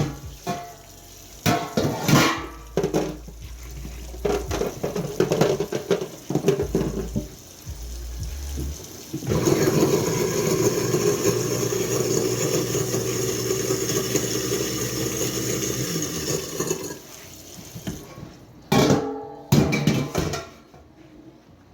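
Pots and dishes clattering in a kitchen sink, then a tap running steadily for about seven seconds before more clatter near the end.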